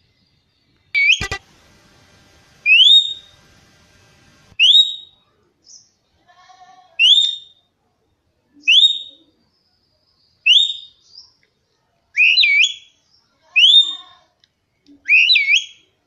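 Rose-ringed parakeet (Indian ringneck) giving about nine short, rising whistled calls, one every one and a half to two seconds; the last few dip briefly before they rise. A sharp click comes with the first call, about a second in.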